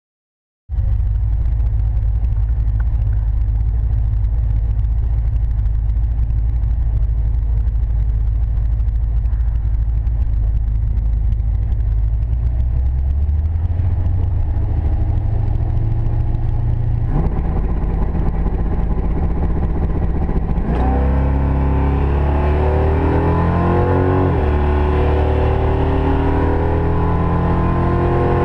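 Drag car's engine, heard from inside the cabin, cutting in after a brief silence and idling steadily at low rpm. In the last third it is revved up, the pitch climbing, dipping and held higher.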